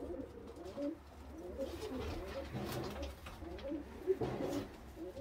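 Domestic pigeons cooing in a loft, several birds at once, their low calls overlapping without a break.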